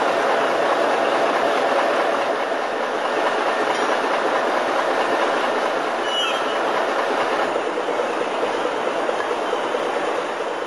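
A crane's engine and machinery running steadily under load, a dense even rumble, with one brief high squeak about six seconds in.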